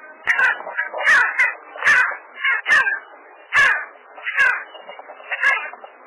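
Sandgrouse calling: a series of about eight short calls, roughly one every 0.7 seconds, each sliding down in pitch, several starting with a sharp click.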